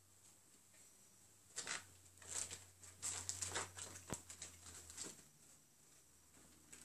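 Ferrets scrabbling over a fabric backpack and towel: faint bursts of rustling and scratching from about a second and a half in until about five seconds, with one sharp click near the middle.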